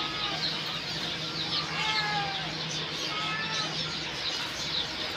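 A crowd of young chicks cheeping continuously in high, falling peeps, with a low steady hum underneath.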